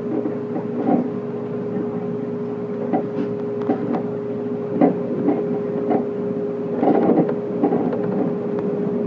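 Electric commuter train running, heard from inside the front car: a steady hum with a constant tone, and irregular clacks and knocks from the wheels on the track, about one a second.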